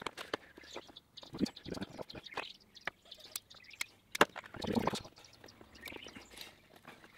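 Hands working a rubber hose, metal hose clips and pliers: scattered sharp clicks and knocks, the loudest a little past four seconds, followed by a short rustle.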